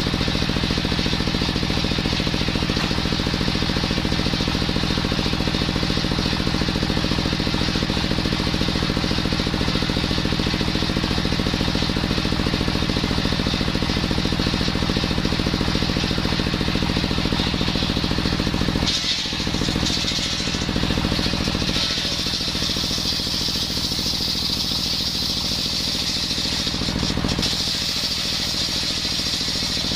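Small-engine-driven circular wood saw running steadily. About two-thirds of the way through, the engine note dips briefly and a higher whine joins it.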